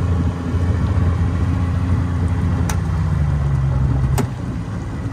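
Outboard motor on a small aluminium jon boat running under way. Its pitch sags gradually, and about four seconds in the level drops as it is throttled back, with a couple of sharp clicks.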